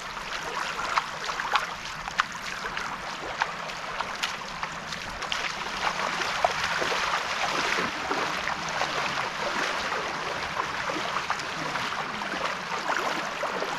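Shallow sea water lapping at the shore, a steady trickling hiss dotted with many small splashes.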